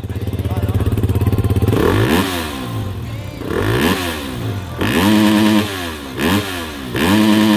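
Beta RR 350 Racing's single-cylinder four-stroke engine idling, then revved in about five quick throttle blips from about two seconds in, two of them held briefly at high revs before dropping back to idle.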